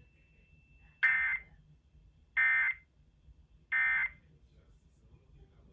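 Emergency Alert System end-of-message data bursts: three short, identical warbling digital squawks about 1.3 seconds apart, marking the end of the test alert.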